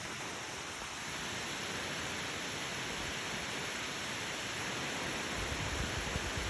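Waterfall: a steady rush of falling water, a little louder about a second in. A low rumble joins it near the end.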